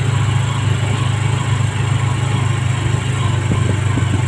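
Engine of a moving vehicle running steadily: a low drone with a fast, even pulse.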